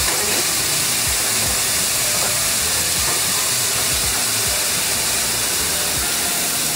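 Ground pork and sliced onions sizzling steadily in a frying pan.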